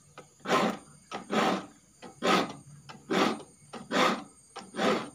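Hand file rasping across the teeth of a wood handsaw to sharpen them: six even strokes a little under a second apart, with a faint click between strokes.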